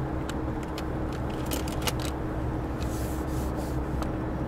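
Car driving slowly on a gravel road, heard from inside the cabin: steady tyre and road rumble with a low engine hum and scattered sharp clicks.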